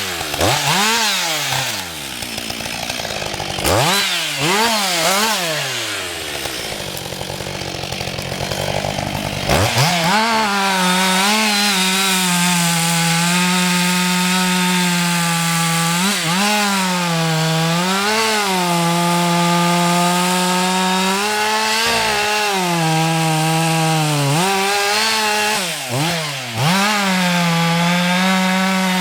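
Husqvarna 560 XP two-stroke chainsaw revved up and down in short blips, then held at high revs from about ten seconds in as it cuts wood, the pitch dipping and recovering several times as the chain takes the load.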